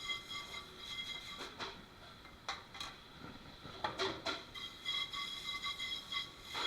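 Dishes and utensils clattering now and then at a restaurant dish sink, over a steady high-pitched hum.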